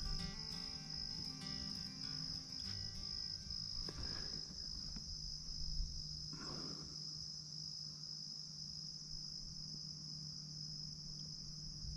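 Insects trilling in one steady high-pitched drone, with a brief soft whoosh about six and a half seconds in.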